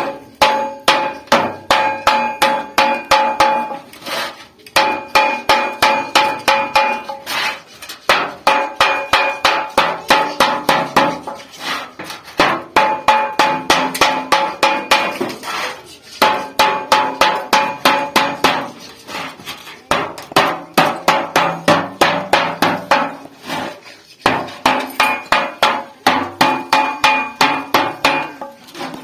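Hammer striking sheet metal in quick runs of ringing blows, with a short break about every four seconds, as a cooking pot is hand-formed from an old refrigerator's sheet metal.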